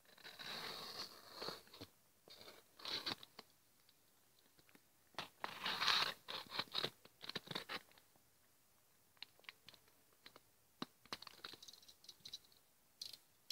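Knife blade scratching and scraping along the edge of a mailer package as it is cut open, in irregular scratchy strokes: a run in the first few seconds, another from about five to eight seconds in, then only a few faint clicks.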